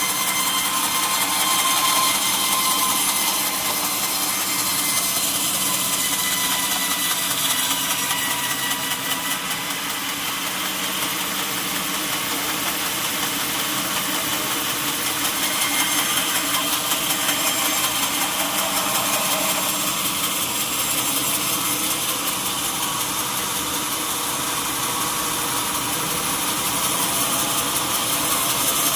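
Sawmill saw running steadily through a mahogany log: continuous machine noise with a high whine that drifts slowly in pitch.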